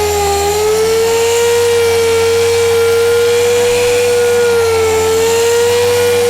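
Orbital sander running steadily with a high whine, sanding a plastic headlight lens with a 3000-grit Trizact foam disc; its pitch sags slightly about five seconds in.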